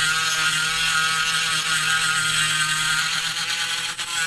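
Gogonova 1800 rpm cordless mini grinder running steadily with its bit grinding into an IC chip on a phone circuit board, a brief break in the sound near the end.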